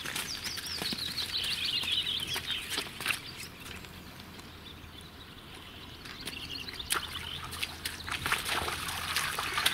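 A songbird sings a quick trill that falls in pitch, near the start and again near the end. Around it come scattered splashes and clicks of cows' hooves stepping through a muddy puddle.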